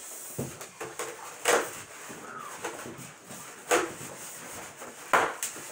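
Styrofoam packing and plastic wrapping of a flat-screen TV being handled: four short scraping rustles a second or two apart.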